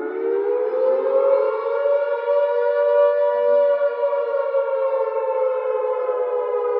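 Air raid siren wailing with a two-note tone. It climbs in pitch for about the first two seconds, holds, then slowly sinks.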